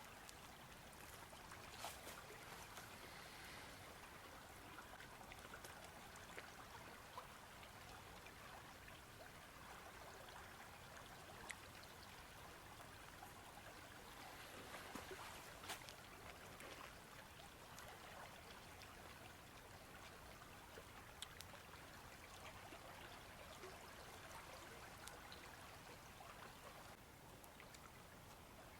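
Faint, steady rushing of a flowing river, with a few soft clicks scattered through it.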